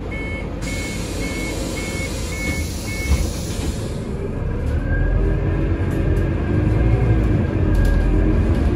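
Inside a Scania CN280UB city bus, a warning beep sounds about six times at roughly two a second over a hiss of air. About four seconds in, the hiss dies away and the bus's Scania OC09 compressed-natural-gas engine and ZF automatic gearbox pull away, the drive note rising and growing louder as the bus gathers speed.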